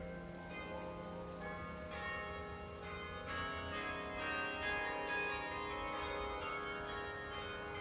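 Carillon bells playing a slow melody: notes struck one after another, each ringing on and overlapping the next.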